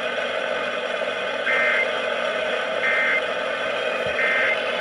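Weather radio receiver playing three short two-pitch data bursts about 1.3 s apart over steady static: the SAME digital code of an Emergency Alert System broadcast, each burst short enough to be the end-of-message code that closes an alert.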